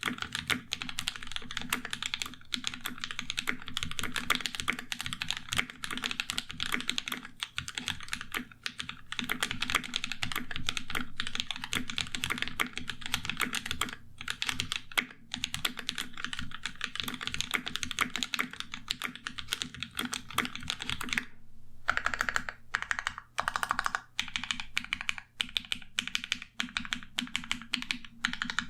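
Custom 60% mechanical keyboard with lubed Alpaca linear switches (slightly overlubed), GMK Striker keycaps and a carbon fibre plate in an aluminium Klippe case, typed on in a fast, steady stream of keystrokes. About 21 seconds in the typing stops briefly, then picks up again with slower, more spaced strokes.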